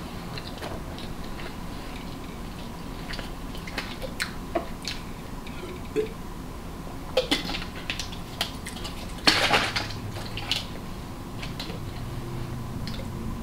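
Close-up eating sounds from a seafood boil: scattered clicks and cracks of shellfish shells and utensils, with a louder crackling crunch about nine seconds in.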